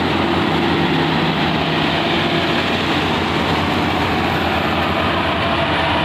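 GAM Ruilong rice combine harvester's diesel engine and threshing machinery running steadily at close range while the machine cuts standing rice.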